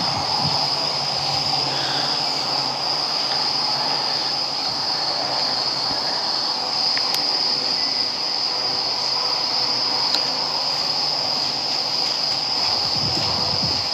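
Steady high-pitched chorus of night insects, one unbroken shrill tone.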